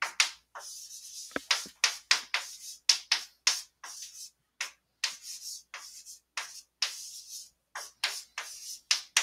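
Chalk writing on a blackboard: a quick run of short scratchy strokes and taps, about three a second, each starting sharply.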